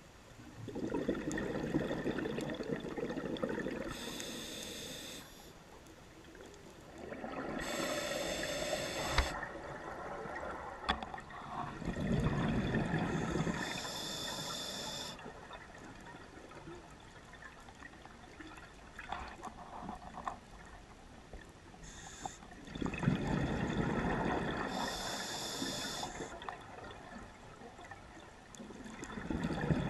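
Underwater scuba breathing through a regulator: hissing inhalations and bubbling, gurgling exhalations, about four slow breaths with gaps between them.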